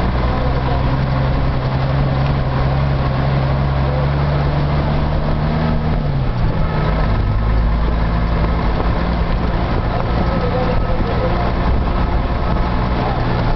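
Street traffic with a large motor vehicle's engine running close by, a steady low hum whose pitch dips briefly about six seconds in before settling again.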